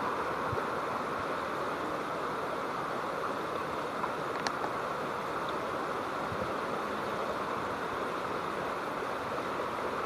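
Steady rushing of flowing river water, with one brief faint click about four and a half seconds in.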